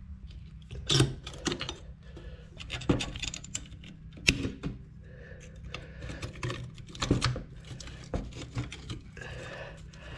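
Irregular metallic clicks, clinks and knocks of tools and parts being handled while taking apart a rusty drum brake assembly.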